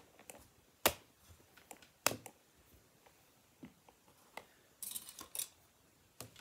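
Art supplies being handled and set down on a wooden tabletop: a scattering of sharp taps and clicks, the loudest about a second in and two seconds in, with a short rustle and a quick run of clicks about five seconds in.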